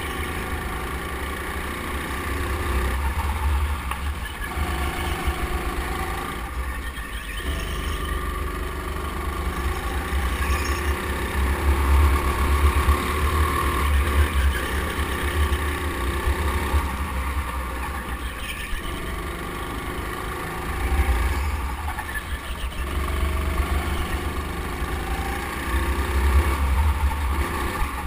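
Go-kart engine running while the kart laps the track, its level swelling and easing several times as the throttle opens and closes through the corners, over a heavy low rumble.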